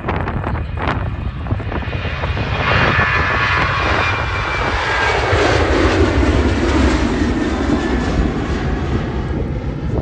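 An airliner's engines pass close by, swelling a couple of seconds in with a high whine and sliding lower in pitch as the aircraft goes past. Wind rumbles on the microphone underneath.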